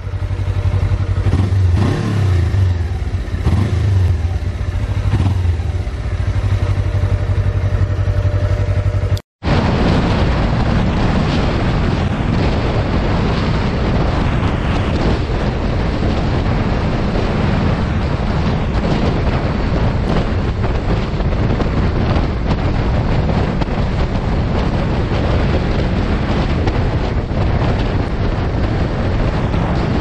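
Suzuki GSX250R's parallel-twin engine running, blipped up a few times in the first several seconds. After a sudden cut about nine seconds in, a steady, dense rumble continues.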